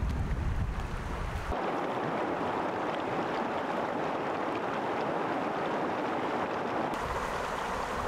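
Shallow creek rushing over rocks, a steady hiss of water, with wind rumbling on the microphone at the start and again near the end.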